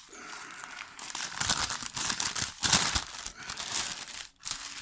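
Packaging being crinkled and torn open by hand, in irregular rustles with a louder rip near the end.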